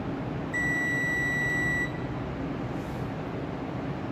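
Digital clamp meter's continuity buzzer sounding one steady high beep for about a second, the sign that the probes have found a closed circuit.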